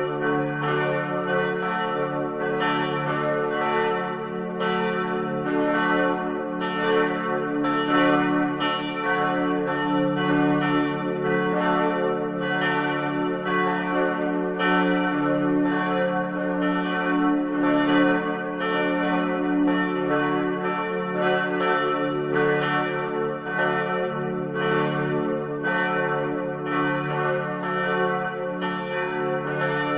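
Church bells ringing: several bells struck in a steady, regular succession, their tones ringing on and overlapping.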